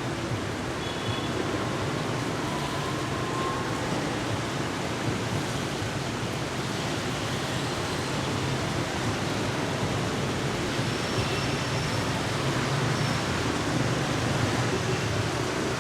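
Heavy rain pouring steadily, an even hiss with no let-up.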